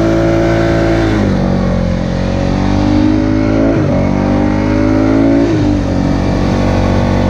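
Polaris four-wheeler's engine running under throttle through deep snow. Its pitch climbs slowly and then drops back sharply about a second in, again near four seconds, and again past five and a half seconds.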